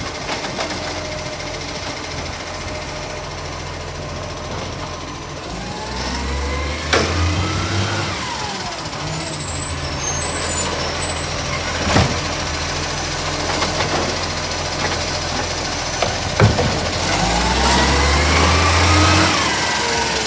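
Side-loader garbage truck running, its engine revving up twice as the lifting arm works, each time with a whine that rises and falls in pitch. A few sharp knocks sound along the way, and there is a burst of air hiss about halfway through.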